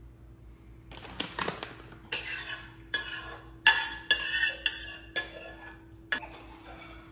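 Metal spoon scraping and clinking against a frying pan as the last of the vegetable topping is scraped out, in a run of separate strokes starting about a second in, loudest near the middle and trailing off near the end.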